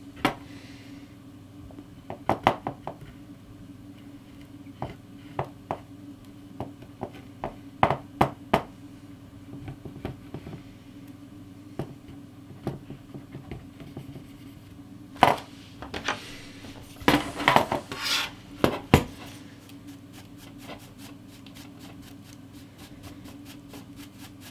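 Hands cleaning a bare graphics card circuit board: scattered light clicks and taps, with a denser stretch of rubbing and scraping about two-thirds of the way through.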